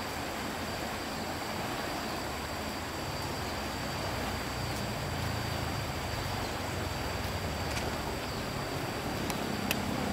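Steady rush of a muddy river flowing fast beneath a bridge, with a thin high tone held through it and a few faint ticks near the end.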